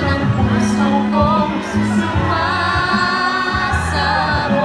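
Pop song playing, with a sung vocal line over sustained bass notes and a light cymbal beat.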